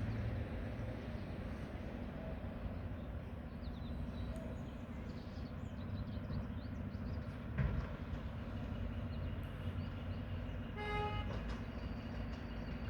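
Steady low rumble of a Mack McNeilus front-loading garbage truck running, with a single thump about halfway through and a short horn toot near the end.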